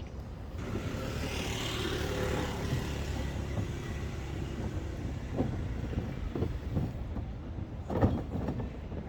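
A motor vehicle passing, a broad rushing swell that builds about half a second in and slowly fades, followed by a few scattered knocks with a sharper thump about eight seconds in.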